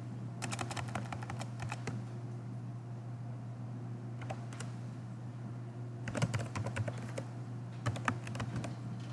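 Typing on a computer keyboard: short runs of key clicks with pauses between them, over a steady low hum.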